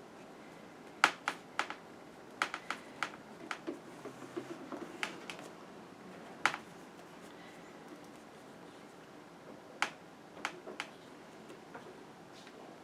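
Irregular sharp clicks and taps from handling paper-craft supplies during bullet journal decorating, with faint paper rustling between them. The clicks come in clusters in the first half and again about ten seconds in.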